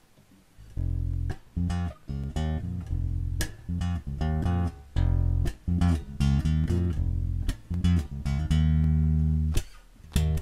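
Harley Benton PB Shorty short-scale electric bass with a passive precision pickup, played clean and plugged straight into the mixer. It plays a run of plucked notes, some short and quick, then a longer held note near the end.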